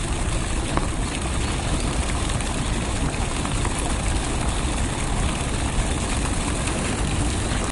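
Wind buffeting the microphone: a steady, deep rush of noise with no clear rhythm or pitch.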